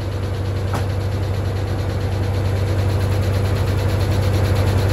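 Straight-piped Farmall Super M tractor engine running steadily while powering the sawmill, the saw not in a cut. A single light knock a little under a second in.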